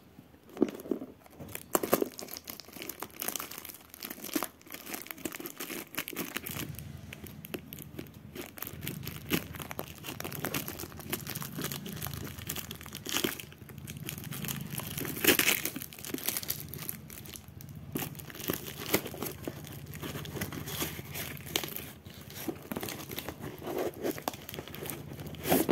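Taped brown-paper parcel wrapping crinkling and tearing as it is cut open and pulled apart by hand, in irregular crackles with a few louder rips.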